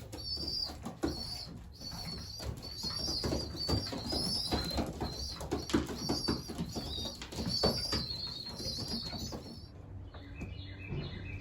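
Young racing pigeons (squeakers) peeping in quick high runs as they beg and are fed by the adults, with wing flapping and scuffling among the birds. The peeping stops near the end.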